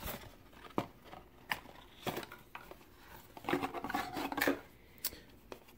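Cardboard packaging being handled: an inner tray slid out of its sleeve-style box, with scattered light clicks and taps and a scraping rub about three and a half seconds in.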